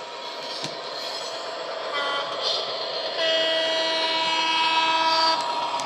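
Sound decoder in a Hornby Class 67 model locomotive playing diesel engine sound through its small speaker, growing louder as the model approaches. A brief horn note comes about two seconds in, then a horn blast about three seconds in that lasts about two seconds.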